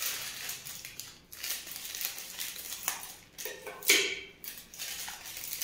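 Plastic Maggi noodle packet crinkling and rustling as it is snipped open with scissors and handled, with crushed dry noodle pieces tipped out into a plastic bowl. The loudest crackle comes about four seconds in.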